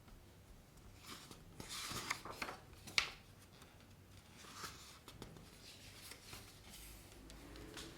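Faint rustling of a picture book's pages being handled and turned, with a sharp tap about three seconds in.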